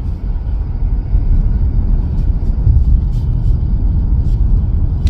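Steady low rumble of a moving car, heard from inside the cabin: road and engine noise with no voices, and a few faint ticks.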